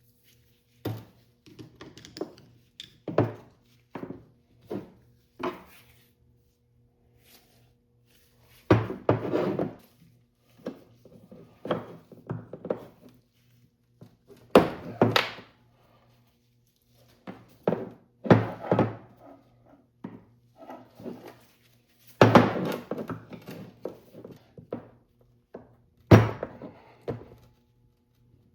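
Irregular knocks, clunks and scrapes of tools and metal parts being handled on a workbench during dirt-bike shock linkage work, with a few heavier clunks among lighter taps, over a faint steady hum.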